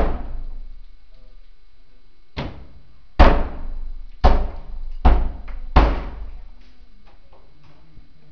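Heavy blows against a locked flat door as fire brigade staff break it open: five loud thuds about a second apart starting about two seconds in, then a few lighter knocks.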